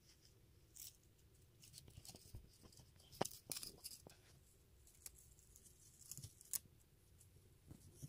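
Faint rustling and scraping of twine being wound around the cork stem of a wine-cork pumpkin, with a few sharp clicks, the loudest about three seconds in and another about six and a half seconds in.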